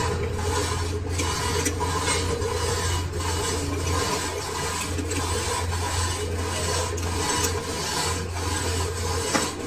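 Lathe running with a steady low hum while an abrasive or tool rubs and rasps against the turning steel shaft.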